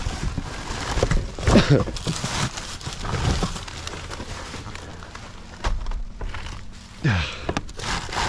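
Rummaging through trash in a dumpster: irregular knocks, clatter and rustling of bags and containers, with two brief voice sounds, about one and a half seconds in and near the end.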